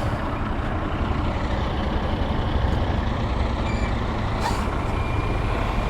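Yamaha R6 inline-four sport bike running steadily, its engine heard as an even low rumble under road and wind noise.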